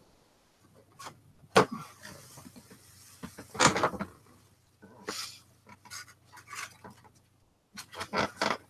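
Handling noises as a dust mask and safety goggles are put on: scattered rustling and small knocks, with a sharp click about a second and a half in and a longer rustle around three and a half seconds in.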